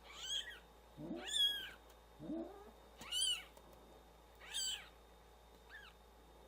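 Newborn kittens mewing: about five thin, high-pitched cries, each rising and then falling in pitch, a second or so apart. Between the first few cries come two lower, rising calls.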